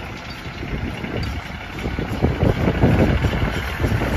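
Ford 1520 compact tractor's 23 HP Shibaura diesel engine running as the tractor drives, a rapid low pulsing that grows louder from about halfway through as the tractor turns and comes closer.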